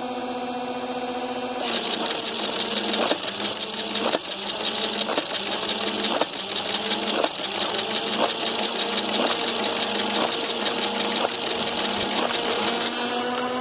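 Battery-powered toy minigun whirring steadily, its motor pitch dropping under load about two seconds in as it starts firing, with a sharp click roughly once a second as each projectile is shot out. Near the end the motor's pitch rises again as the firing stops.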